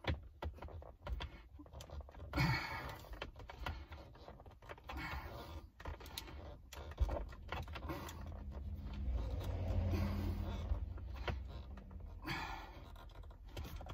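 Scattered small clicks, taps and rattles as a hand screwdriver drives a screw into the plastic center-console armrest frame of a 2009 Honda Accord. A faint low hum comes in for a few seconds past the middle.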